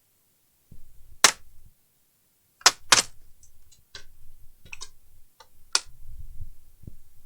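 A run of sharp clicks and knocks, about a dozen, with a low rumble of handling between them: tools and small plastic parts being handled as a device is taken apart. The loudest clicks come a little over a second in and twice close together near three seconds.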